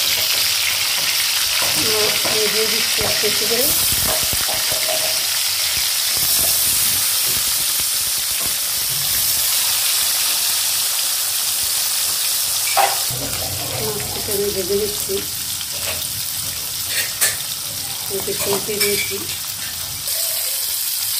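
Fish pieces, rubbed with salt and turmeric, frying in hot oil in a karai: a steady sizzle. A few sharp clicks come in the second half.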